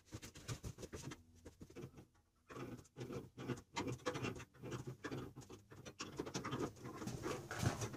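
Hands working on a water heater unit set on cardboard: irregular clicks, scrapes and rustles of fittings and packaging being handled, with a short pause a little after two seconds.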